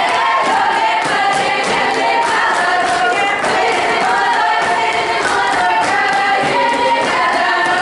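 Russian children's folk ensemble singing a folk song in chorus, several voices together, over a steady beat of sharp knocks.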